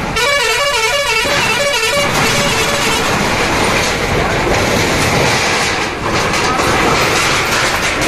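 A musical vehicle horn plays a quick, warbling run of stepping notes for about the first three seconds. After that comes a loud, rough, continuous noise with scattered clatter from the JCB backhoe working and the corrugated metal sheeting of the shops being torn down.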